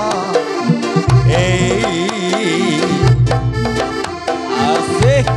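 Live campursari music: a wavering, reedy melody line with pitch bends over steady hand-drum strokes, and deep bass notes that come in and drop out every second or so.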